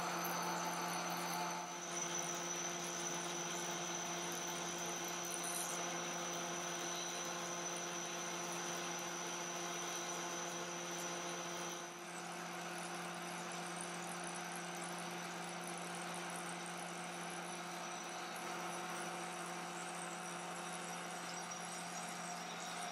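Metal lathe turning a steel workpiece under cut: a steady machine hum with a thin high-pitched whine above it, as the tool peels off curling swarf.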